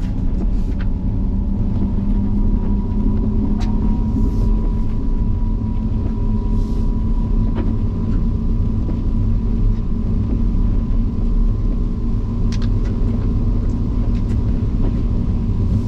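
Cabin of a GMC Hummer EV driving over an off-road course: steady low road and tyre rumble with a faint steady hum, and a few brief clicks scattered through it.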